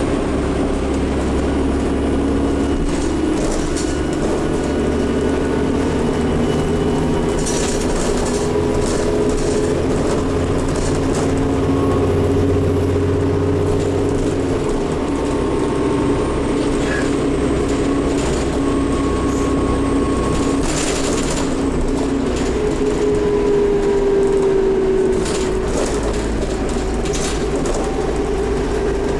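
Dennis Trident double-decker bus running under way, a steady diesel rumble with an odd-sounding turbo whine over it. Short rattles come through about a third of the way in and again about two-thirds in.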